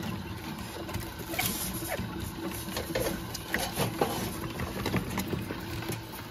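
Quail pecking and scratching at feed and litter in a feeder tray, a rapid irregular pattering, with a few short chirps. Dry feed rattles into a plastic tray as it is poured.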